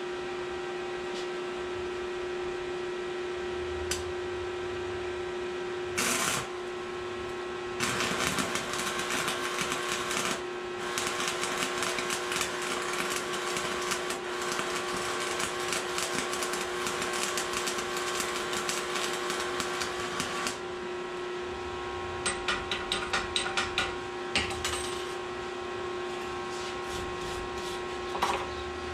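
Stick (shielded metal arc) welding: a brief arc strike about six seconds in, then a continuous crackling arc for about twelve seconds as a bead is run on the steel billet, over a steady hum. A few seconds later comes a quick run of short scratchy strokes as the weld is cleaned with a wire brush.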